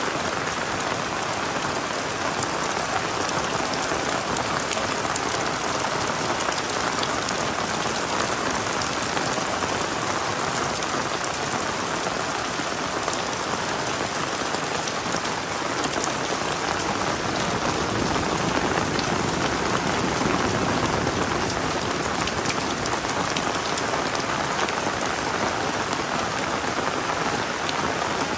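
Heavy rain falling steadily: a dense, even hiss with many small drop ticks through it.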